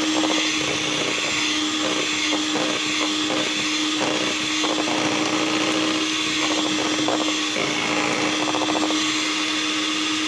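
Electric hand mixer running at a steady speed, its twin wire beaters churning thick cake batter in a steel bowl as milk is beaten in. Its motor gives one steady hum, with irregular short clatters from the beaters in the batter.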